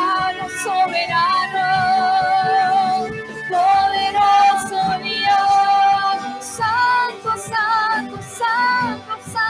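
Live worship music: a woman singing long, sliding held notes over a band.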